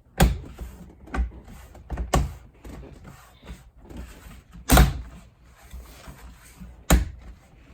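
A plastic interior trim part in a car being pushed and knocked into place by hand: five sharp thumps, the loudest about two thirds of the way through, with rustling and handling between, as a stubborn piece is forced to seat.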